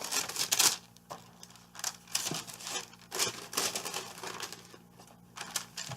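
Pink wrapping paper in a subscription box crinkling and rustling as it is handled, in short irregular rustles, loudest in the first second.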